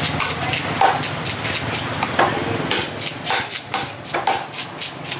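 Heavy curved cleaver chopping through a trevally into steaks, each blow knocking onto a thick wooden chopping block, in a string of irregular chops.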